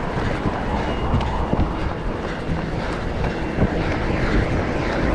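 Steady low wind rumble buffeting the microphone of a camera carried on the run, with scattered irregular knocks.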